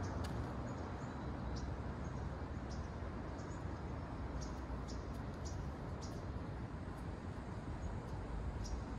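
Steady outdoor background noise with a low rumble, and faint, short, high chirps scattered throughout.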